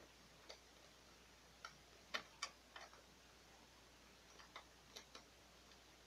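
Small, sharp plastic clicks and taps, about nine spread irregularly with the loudest pair about two seconds in, as a small wired sensor is handled and pressed against the plastic frame of a Canon PIXMA MG3510 inkjet printer.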